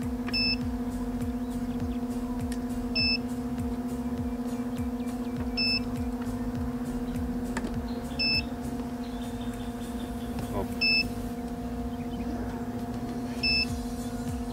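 A short electronic beep repeating at an even pace about every two and a half seconds, six times, over a steady low hum.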